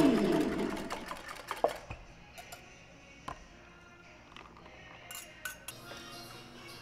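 Spoon, steel pitcher and glasses clinking a few separate times while iced drinks are stirred and poured. Music fades out over the first second or two.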